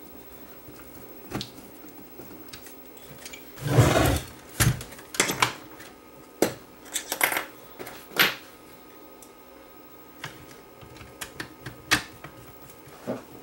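Scattered clicks and knocks of screws and parts being handled as the front panel of a compact stereo amplifier is screwed back on, with a heavier knock about four seconds in.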